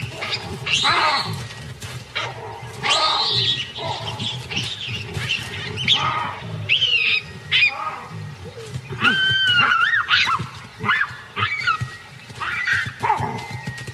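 A troop of baboons screaming in an aggressive squabble: many shrill calls in quick succession that sweep up and down in pitch and overlap one another, the sound of bullying and fighting among the baboons.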